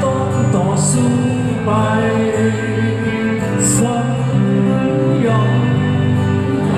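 Live rock band playing a song with singing and guitar, recorded from the seats of a large arena.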